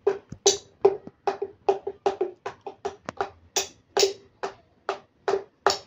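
A whole king coconut being slapped and tapped by hand: a run of irregular knocks, about three a second.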